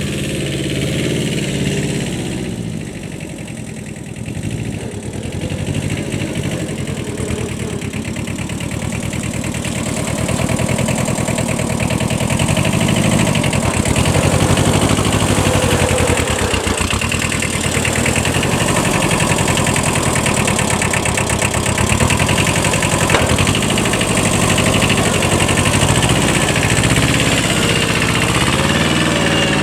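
Kubota 5001 compact 4x4 tractor's small diesel engine running, its revs rising and falling over and over as it works, getting louder about ten seconds in.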